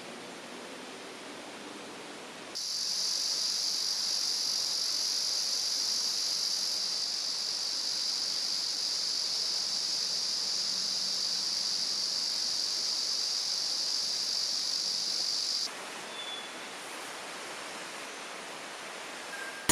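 Steady high-pitched buzzing of insects over the continuous hiss of a stream. The buzzing starts abruptly about two and a half seconds in and cuts off abruptly about four seconds before the end, leaving only the stream.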